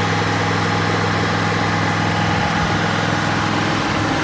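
An engine running steadily at idle, a low even hum under a constant hiss with no change in pitch.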